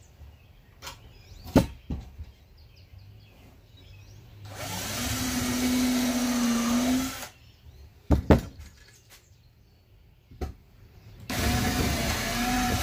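Power drill boring pilot holes into pine board: two runs of about two and a half and two seconds, each spinning up to a steady whine. Between them come a few sharp knocks of the drill and wood being handled.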